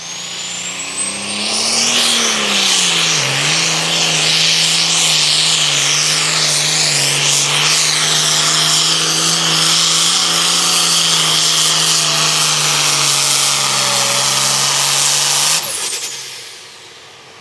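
International Harvester super farm pulling tractor's turbocharged diesel engine at full throttle pulling the weight sled. A rising turbo whine over the first two seconds, then a loud, steady run with the pitch dipping briefly about three seconds in, until the engine cuts off suddenly near the end as the pull finishes.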